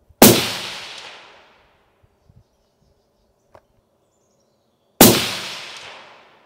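Two rifle shots from a suppressed Savage Axis in .223, about five seconds apart, each a sharp crack ringing out over about a second, with a faint click between them.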